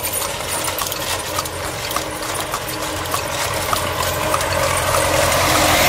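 Horse's hooves clip-clopping on asphalt with the rattle and clicking of the horse-drawn cart's harness and shafts, over a steady low hum. An oncoming motor vehicle grows louder near the end.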